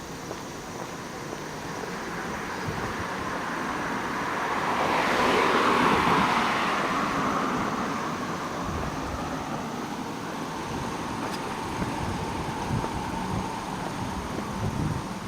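A road vehicle passing by, growing louder to a peak about six seconds in and then fading away.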